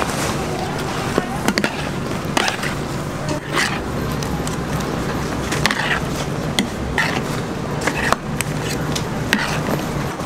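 Plastic scoop scraping and knocking against a steel tray while sauce-coated fried chicken is tossed, with irregular short scrapes and clicks over a steady low hum.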